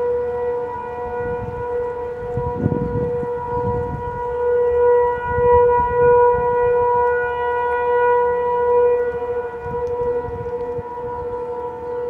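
Federal Signal 500 outdoor civil defense (tornado) warning siren sounding during a test, holding one steady tone that swells and fades in loudness.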